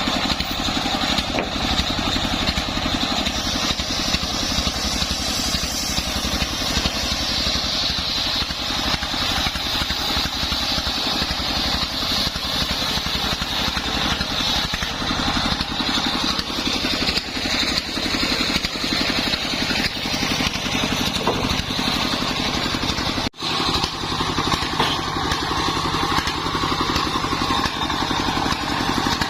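Engine-driven homemade circular sawmill running steadily, its blade cutting through sengon wood. The sound breaks off for an instant about three-quarters of the way through.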